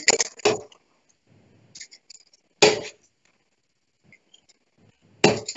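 Darts being pulled out of a Winmau Blade 5 bristle dartboard, with a few sharp clicks, then a single dart thudding into a board about two and a half seconds in, and another knock near the end.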